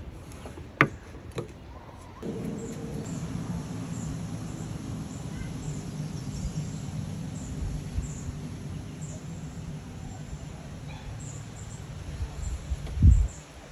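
Outdoor ambience of faint, repeated high chirps, with a steady low hum that comes in about two seconds in. A sharp click sounds about a second in, and a low thump near the end is the loudest sound.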